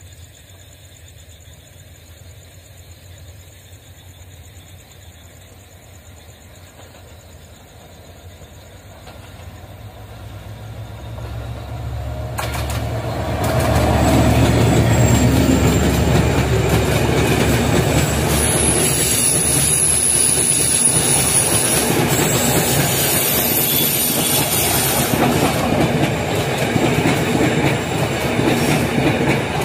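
A train hauled by a Class M11 diesel locomotive approaches, faint at first and growing steadily louder over about ten seconds, with its low engine rumble peaking as it passes about fourteen seconds in. The passenger coaches then roll by with a steady clickety-clack of wheels over the rail joints and a high-pitched wheel squeal on the curve for several seconds.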